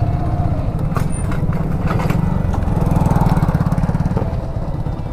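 Motorcycle engine running at low revs, a steady rapid putter, with a few short clicks over it.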